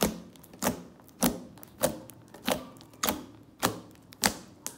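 Pink slime pressed and released by fingertips, giving sharp clicking pops, about eight in an even rhythm of roughly one every 0.6 seconds.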